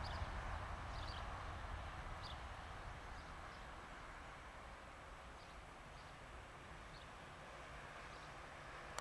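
Jet airliner's engine noise on the runway, a low rumble fading steadily as the aircraft moves away, with birds chirping now and then.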